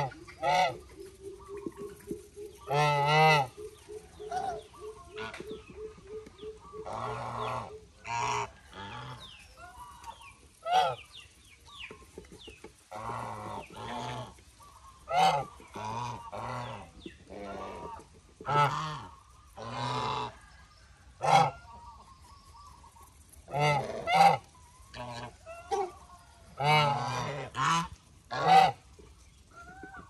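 White domestic geese honking repeatedly, loud harsh calls coming singly and in clusters, with several in quick succession near the end.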